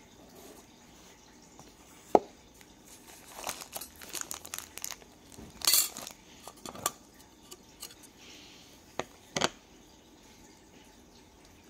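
Handling noises as a metal tin of mosquito coils is opened and unpacked. A sharp click comes about two seconds in, then the plastic wrap around the coils crinkles and rustles, and near the end a thin metal coil stand clinks twice as it is handled.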